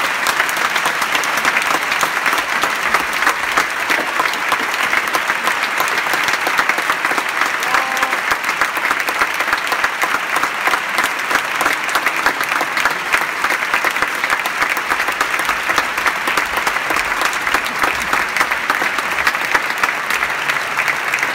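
Audience applauding steadily: dense, many-handed clapping that holds at an even level throughout.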